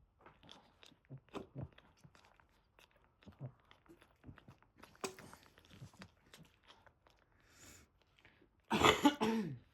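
Soft wet smacking and chewing sounds from a mother Boston terrier licking and chewing as she tends her newborn puppies. About nine seconds in, a loud, choked-up sob from a person cuts across them.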